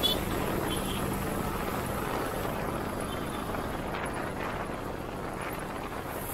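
Motorcycle riding noise at speed: steady wind and road rush with the engine running underneath. A short sharp knock right at the start.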